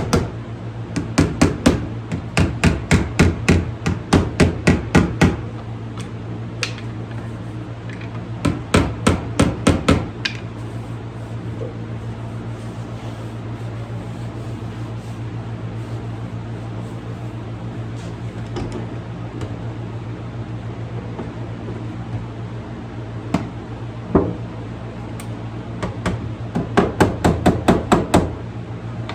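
Body hammer tapping on the thin sheet metal of a car door panel, knocking down the high spots around pulled dents: runs of quick light taps, about four a second, near the start, around nine seconds in and again near the end, with a few single knocks between.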